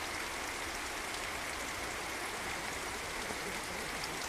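Steady, even rushing of running water, unchanging throughout.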